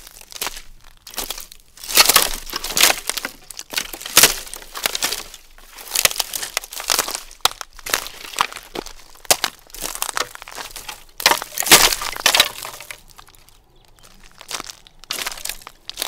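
Footsteps on a pile of dry sticks and branches: twigs snapping, cracking and crunching underfoot in irregular bursts, with a short lull near the end.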